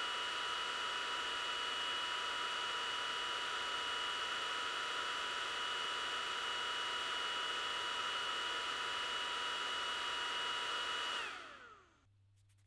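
Cooling fan of an xTool D1 Pro 20W laser engraver running steadily during engraving, a rushing hum with a steady whine. About eleven seconds in it spins down, its pitch falling, and stops as the job ends.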